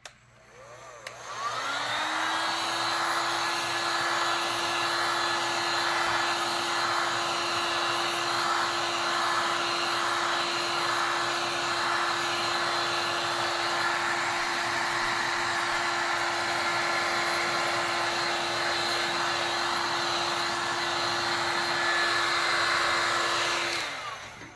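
Heat gun switched on, its fan whine rising to speed about a second and a half in, then blowing steadily, and cutting off just before the end. It is warming wet epoxy on a tumbler so the colours start to flow.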